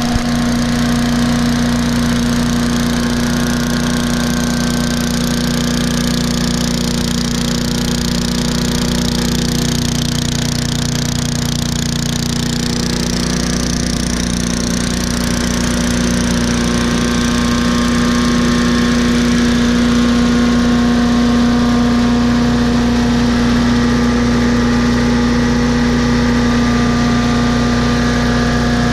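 Troy-Bilt CS4325 chipper shredder's 250 cc Briggs & Stratton 1150 Series single-cylinder engine running steadily, getting a little louder past the middle. The engine runs freshly warmed up after cleaning a partly clogged carburetor bowl-nut jet.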